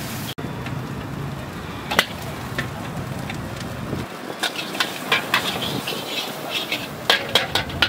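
Metal ladle clanking and scraping against a large wok, once about two seconds in and then in a quick run of clanks through the second half, over the steady rush of the gas burner.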